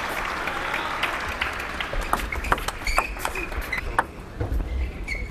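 Arena crowd applauding a point in a table tennis match. After about two seconds the applause thins into scattered claps and sharp clicks, with a few short high squeaks.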